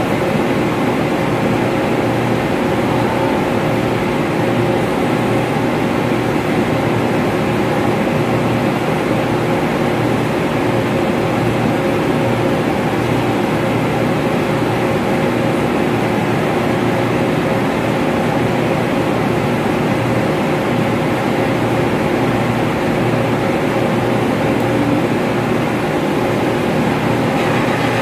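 Steady, loud drone of running ventilation machinery, with a few constant hum tones and no change in level.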